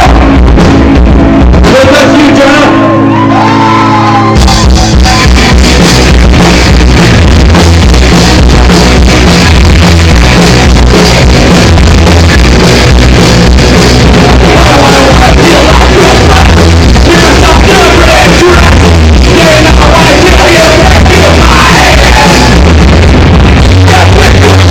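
Loud rock music with shouted vocals, recorded at full scale throughout so that it sounds harsh and overdriven.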